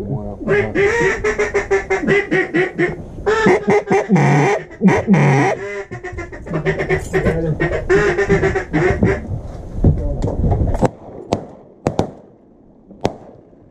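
Duck calls blown loudly in repeated runs of mallard-hen quacks. After about nine seconds the calling stops and a string of sharp shotgun shots follows.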